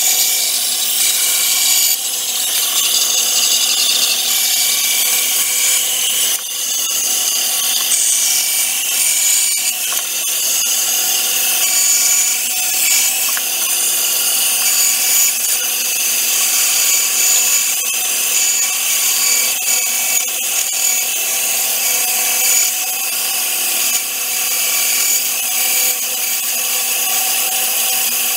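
14-inch bandsaw running steadily while its blade cuts through a thin wooden blank on a circle-cutting jig, trimming off the blank's corners to rough out a circle.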